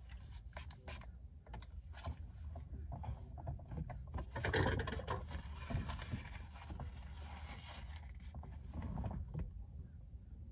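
Faint scattered clicks and rustling of small handling noises close to the microphone, with a louder rustle about four and a half seconds in.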